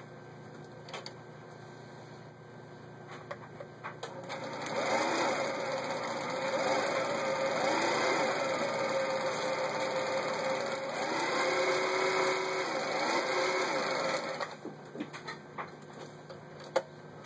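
Vintage Elna TSP 72C sewing machine running and stitching one of its built-in patterns through cloth for about ten seconds, its pitch rising and falling several times, then stopping abruptly. Light clicks from handling the machine and fabric come before and after the run.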